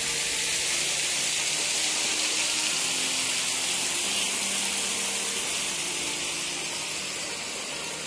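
Waterfall and rocky stream rushing, a steady even hiss that eases slightly near the end.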